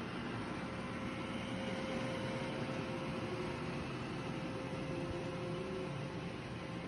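Robot vacuum running: a steady motor and suction whir with a thin, even hum.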